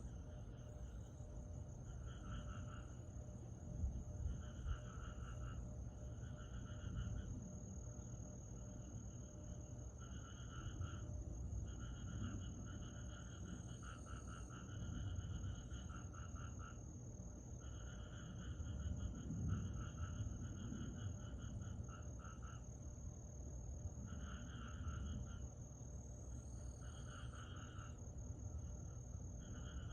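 Summer night chorus of calling insects: a steady high-pitched trill throughout, with repeated bouts of pulsed chirping, each lasting one to two seconds, over a faint low rumble.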